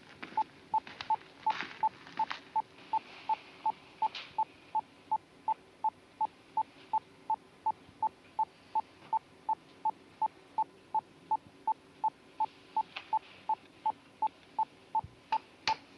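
Signal analyzer beeping steadily, a long even run of short high electronic beeps just under three a second, as it tracks a radio transmission. A few soft clicks are heard during the first seconds and two sharp clicks near the end.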